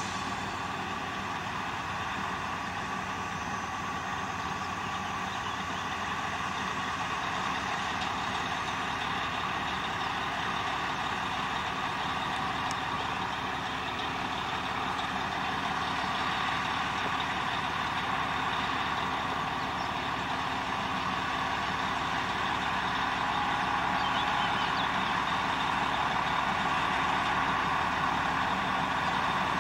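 Narrow-gauge diesel locomotive's engine running steadily, slowly growing louder as it hauls a train of hopper wagons toward the listener at low speed.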